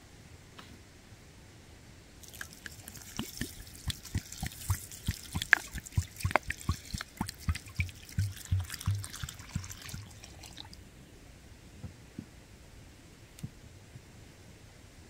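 Water pouring and splashing for about eight seconds, starting a couple of seconds in, with a string of short knocks running through it; a few scattered clicks follow near the end.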